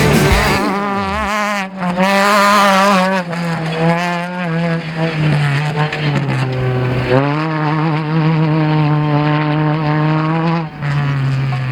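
Off-road desert race vehicle's engine running hard at high revs. An engine note falls away in the first second. The pitch then holds steady, steps down, climbs back up about midway and drops again near the end.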